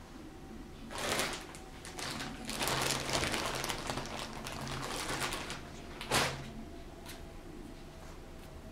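Rustling handling noises in three bursts: a short one about a second in, a longer stretch of rustling from about two seconds to five and a half, and a brief sharp one about six seconds in.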